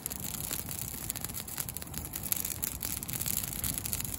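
Campfire of brush and twigs burning briskly, crackling with many small pops over a steady rushing of flames.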